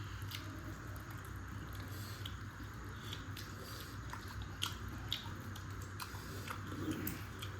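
Close-up chewing and wet mouth smacks of someone eating chicken curry with rice, as scattered short clicks over a steady low hum.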